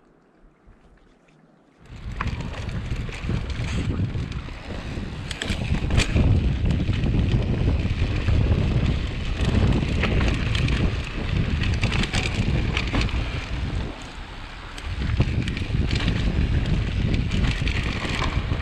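Near silence for about two seconds, then a mountain bike riding fast down a dirt singletrack: heavy wind buffeting on the action-camera microphone over low tyre rumble, with scattered sharp clicks and rattles from the bike over rough ground. It eases briefly about three-quarters of the way through.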